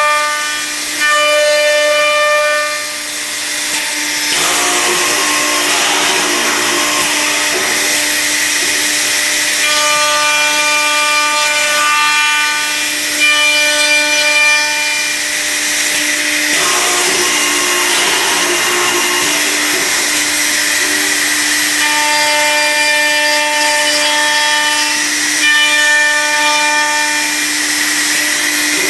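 Accu-Systems HVPP cup hinge machine running on a wooden door: a steady motor hum and spindle whine, broken twice by several seconds of rough cutting noise as the tooling cuts into the wood.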